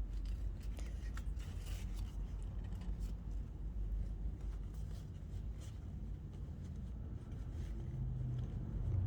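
Small clicks and scrapes of a metal jeans zipper slider being worked back onto the zipper teeth, over a steady low hum.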